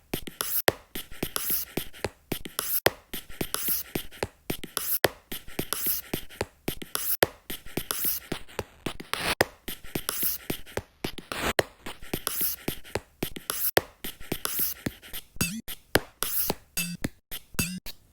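A rhythmic beat built from sampled Apple Pencil taps and scratches on an iPad Pro screen. Sharp clicks mark a strong hit about every two seconds, with quicker taps and scratchy strokes between them.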